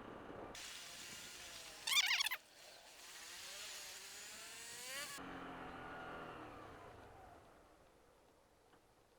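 Traffic and engine noise on the road: a short, loud, high squeal about two seconds in, then an engine rising in pitch as it accelerates. The sound cuts off abruptly about five seconds in and fades to a low hum.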